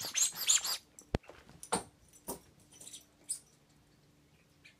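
A small dog scuffling about at play with a toy: a burst of rustling in the first second, then a sharp click and a few soft knocks with quiet between.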